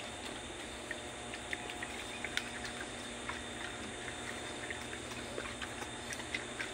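Outdoor ambience with a steady high insect drone, like crickets, and scattered light ticks and clicks.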